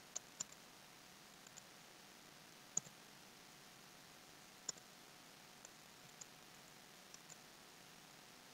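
Faint, scattered clicks of a computer mouse and keyboard as letters are entered into a screen form: a quick pair at the start, single clicks about 3 and 5 seconds in, and a few softer ones near the end, with near silence between.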